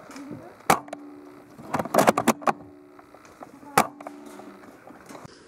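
Sharp clicks and knocks: one, then a quick cluster of several about two seconds in, then another near four seconds, over faint background voices.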